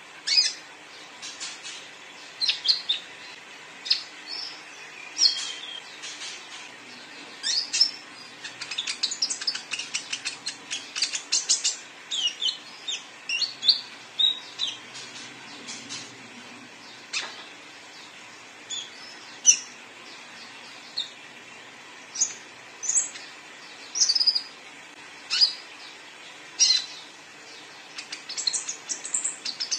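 Young male sunbird singing in a cage: rapid, high, sharp chirps and short twittering trills in bursts with pauses, busiest about a third of the way in.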